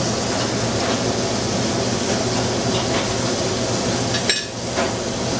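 Steady rushing, hissing noise of a working restaurant kitchen over a low hum, with one short clink about four seconds in.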